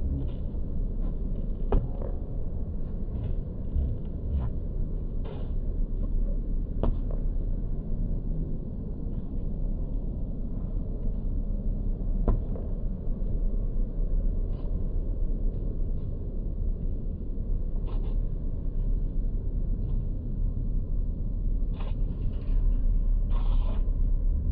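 A basketball hitting the hoop and bouncing on an outdoor court, a sharp knock every few seconds, over a steady low rumble.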